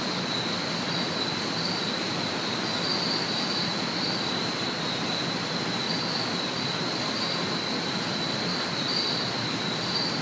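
Steady background hiss with a constant high-pitched whine, unchanging throughout.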